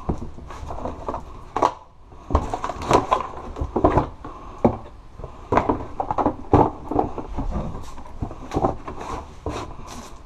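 Objects being handled on and around a wooden dresser: irregular knocks, clatter and rustling as things are picked up, moved and set down.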